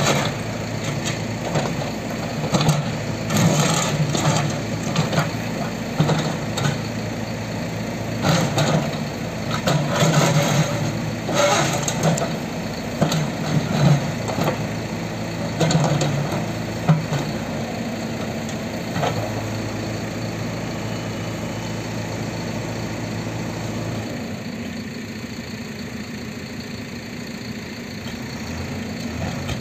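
JCB 3CX backhoe loader's diesel engine rising and falling under hydraulic load as the backhoe bucket breaks up a concrete wall, with repeated cracks and scrapes of concrete. The impacts stop about two-thirds of the way through, and the engine settles to a lower, steadier run near the end.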